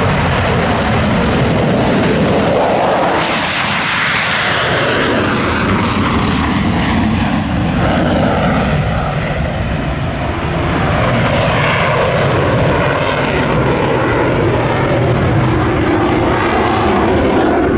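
Jet noise from a Saab JAS 39 Gripen fighter's Volvo RM12 engine as it flies past. The sound turns sharply brighter about three seconds in, then slides down in pitch as the aircraft passes, and a loud rumble goes on after.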